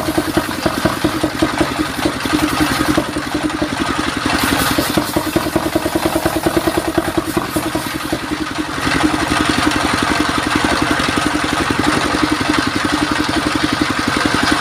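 Engine-driven circular sawmill blade cutting through a mahogany log, over the fast, even pulsing of the belt-drive engine that powers it; the sound grows louder from about nine seconds in.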